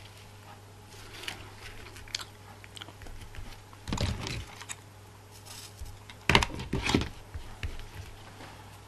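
Tabletop handling: small clicks and rustles of ribbons and metal tools being moved, with two louder clusters of knocks as the hot glue gun is picked up and stood back on the table.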